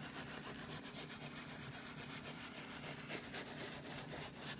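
Horsehair brush scrubbing rapidly back and forth over a leather car seat, a continuous scratchy brushing. It is working cleaner and steam into heavily soiled leather to break up the oily buildup.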